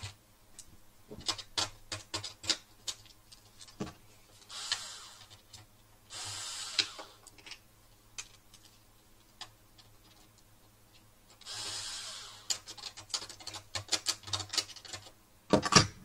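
Screwdriver clicking and scraping on small screws and the metal chassis of a Swann DVR as its circuit board is unscrewed, with three brief rasping scrapes among the taps and a louder cluster of clicks near the end, over a faint low hum.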